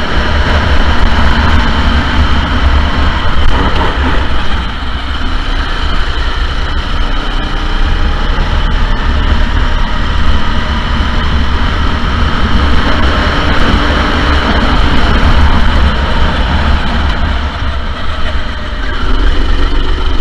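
Sodi SR4 go-kart four-stroke engine running continuously under way, loud, with a strong low rumble.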